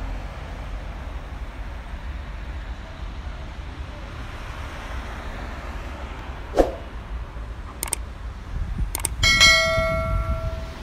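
Steady low rumble of street traffic. Over it, an animated subscribe-button sound effect: a short swoosh, a couple of clicks, then a bell ding that rings for about a second and a half near the end.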